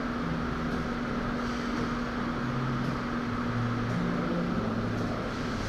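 Steady indoor mechanical hum of building ventilation, with one constant tone running through it.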